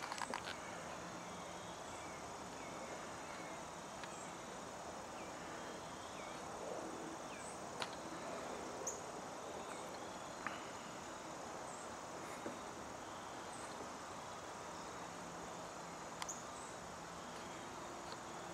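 Steady high-pitched chirring of crickets and other insects, with a few faint short chirps and scattered ticks; a cluster of clicks right at the start.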